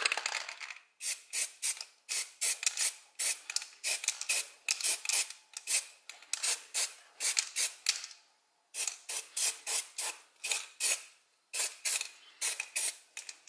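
Aerosol spray-paint can hissing in quick short bursts, roughly two a second, with a brief pause about eight seconds in.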